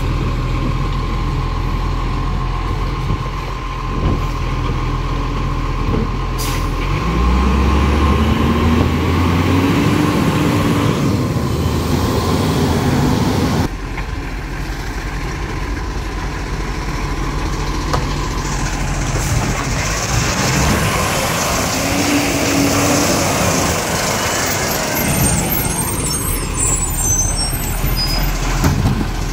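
Automated side-loader garbage truck's diesel engine running, revving with a rising pitch about a quarter of the way in as it moves up the street, with hissing of air brakes. In the second half the truck works at the kerb, its hydraulic side arm whirring as it reaches for the bins.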